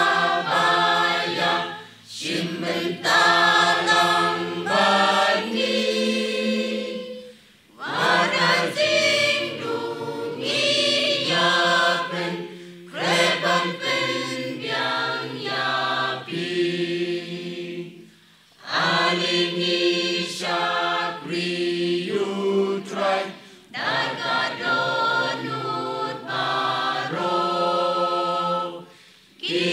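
Mixed church choir of men and women singing a Khasi gospel song, in phrases of about five seconds, each followed by a short breath pause.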